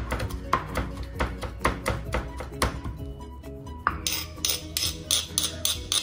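Stone pestle pounding shallots and garlic in a stone mortar, rapid even strokes of about four a second. About four seconds in, a metal spoon scrapes and clinks against the stone pestle and mortar. Background music plays underneath.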